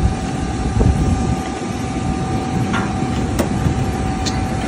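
Steady jet aircraft noise on an airport apron: a low rumble with a constant high whine, and a single sharp knock about three and a half seconds in.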